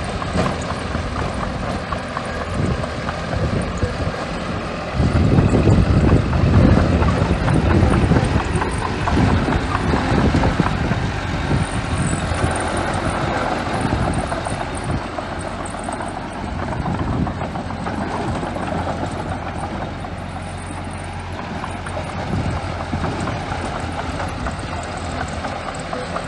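Small bulldozer's diesel engine running while pushing and spreading sand. It is louder for about five seconds starting near five seconds in, then runs on more steadily.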